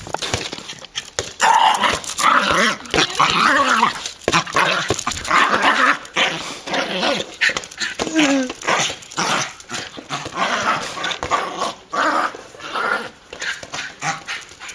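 Small dog growling and barking in irregular bursts as it chases and bites at an inflatable beach ball.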